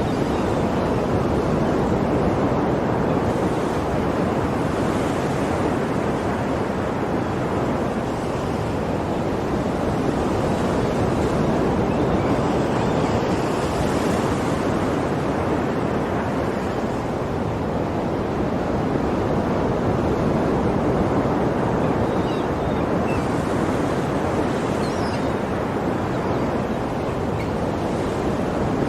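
Ocean waves breaking and washing on a shore, a continuous surf that swells and eases gently every few seconds.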